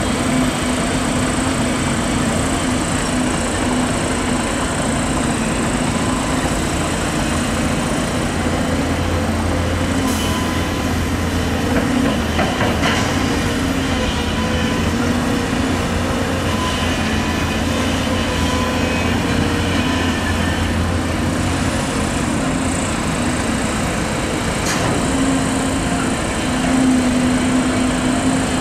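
Volvo EC250DL excavator's diesel engine and hydraulics running steadily under load as it digs soil and swings to load a dump truck. A few sharp knocks come from the bucket and soil, about ten seconds in, a couple of seconds later, and again near the end.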